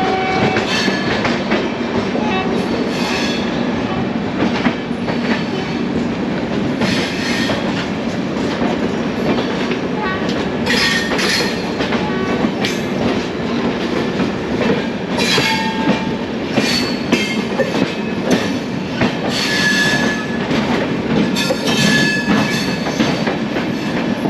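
Passenger train running on the rails: a steady rolling rumble with wheel clatter, broken several times by short, high-pitched metallic screeches of wheels on track.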